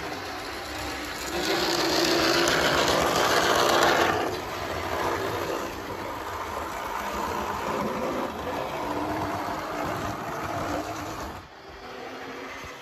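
00 gauge model trains running on the layout's track: a small electric motor whirring with wheel rumble over the rails. It is loudest for a couple of seconds early on, settles to a steadier run, then drops away sharply near the end.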